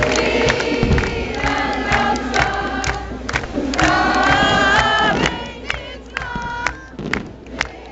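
A large crowd singing and cheering while aerial fireworks go off overhead, sharp cracks and bangs cutting through the voices. The singing is strongest around four to five seconds in and thins out near the end, where the cracks stand out more.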